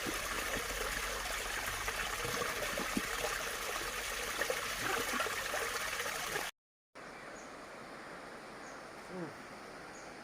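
Water running steadily, as from a tap or pipe rinsing a chicken drinker. It stops abruptly at a cut about six and a half seconds in, leaving quieter outdoor ambience with a faint high chirp about once a second.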